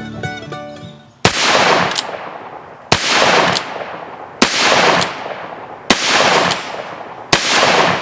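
Five shots from a .38 Special single-action revolver, about a second and a half apart. Each crack is followed by a short ring and a fainter second crack a moment later.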